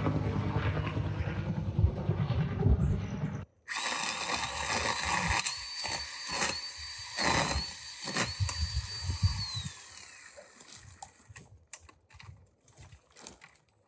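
Helicopter passing overhead, a low pulsing rotor sound, for the first three and a half seconds. After a sudden cut, a motorized extendable pole saw runs with a high steady whine while cutting limbs overhead, with sharp knocks, and winds down about ten seconds in. Scattered light clicks and knocks follow.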